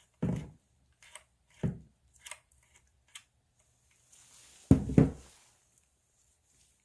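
Craft materials handled on a work table: a few short knocks and light clicks, with a louder cluster of dull thumps about five seconds in.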